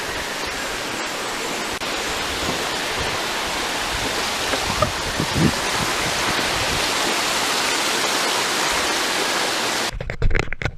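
Waterfall water rushing in a loud, steady roar that cuts off abruptly near the end.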